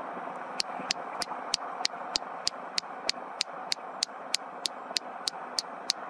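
A steady mechanical hum with a faint, sharp tick repeating evenly about three times a second.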